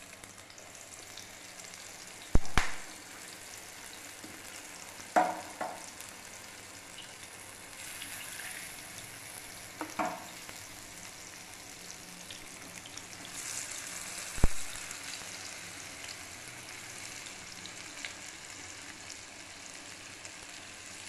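Marinated seer fish steaks sizzling steadily as they shallow-fry in oil on a non-stick tawa. Four sharp knocks stand out over the sizzle.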